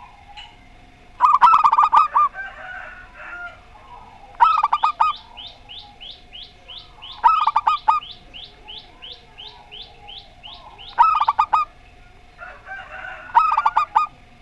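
Zebra doves (perkutut) cooing in turn, five short phrases of quick notes spaced a few seconds apart. In the middle another bird repeats a short, high, falling chirp about three times a second.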